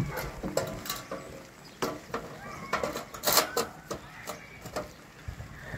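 Light clicks and knocks of a metal trim strip being handled and set against a plywood wall.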